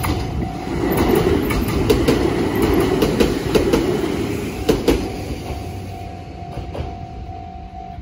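A Jōshin Electric Railway electric train passes over a level crossing, its wheels clacking sharply over the rail joints. The crossing's Tokai-type electronic warning bell rings a steady pulsing tone under it and cuts off near the end, once the train has cleared.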